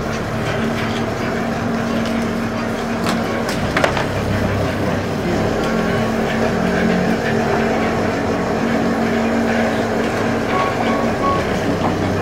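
Small fishing boat's engine and net-hauling machinery running with a steady drone while a bottom gillnet is hauled aboard over the rail, with a few sharp knocks about four seconds in.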